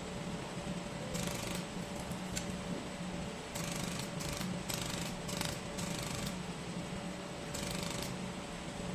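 Laser welder firing in several short bursts of crackling hiss as filler wire is fused into an aluminum mold, most of them clustered in the middle, over a steady machine hum.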